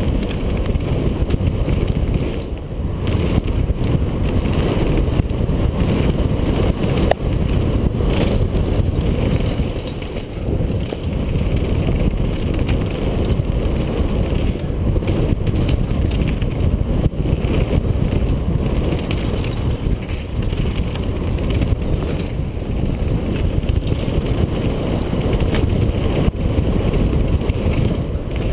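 Wind buffeting a helmet-mounted GoPro mixed with the rattle of a downhill mountain bike over a rough dirt and rock trail: a loud, steady rush with frequent small knocks.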